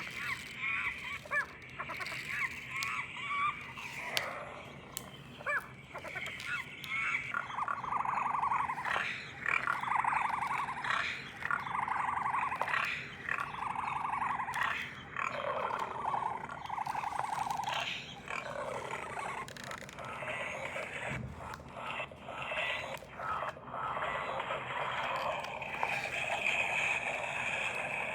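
Recorded African savanna wildlife sounds played back from a children's sound book: chirping bird calls at first, then a run of six evenly spaced rasping calls of about a second each, then a denser mix of animal calls.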